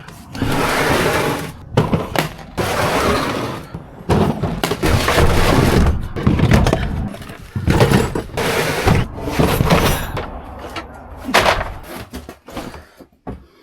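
Tools and gear being picked up, shifted and set down in the back of a work van: a run of clattering and rummaging with several sharp thumps.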